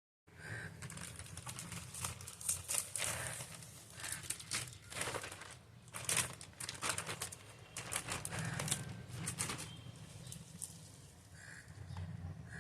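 Packaging being handled and unwrapped, with irregular crinkling and rustling over a steady low hum.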